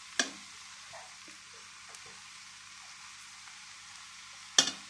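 Perforated metal skimmer knocking against the pan twice, once just after the start and louder near the end, with a few light taps between as cooked rice is spooned onto a layer of sugar, over a faint steady hiss.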